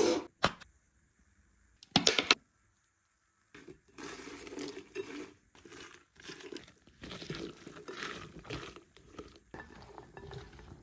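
A silicone spatula stirring and tossing chopped tomatoes and herbs in a glass bowl, an irregular continuous scraping and rustling from about three and a half seconds on. Before it come two short loud bursts, one at the start and one about two seconds in.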